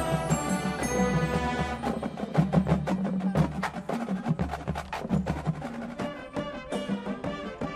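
Marching band show music carried by the percussion section: sustained pitched chords give way, about two seconds in, to a dense run of sharp, dry percussion strokes and drum hits.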